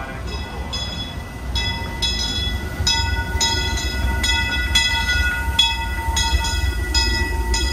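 Steam locomotive bell ringing in a steady rhythm, about two strokes a second, louder from about a second and a half in, over the low rumble of the train running.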